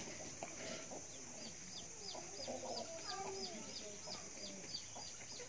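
Chickens clucking in a yard, with a rapid run of short, high chirps repeating about four times a second from a second or so in.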